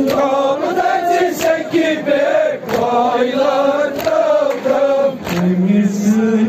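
A male reciter chanting a Kashmiri noha, a Shia mourning lament, into a microphone, with other mourners' voices joining in. Regular slaps of hands on chests (matam) sound roughly every second and a quarter, keeping time with the chant.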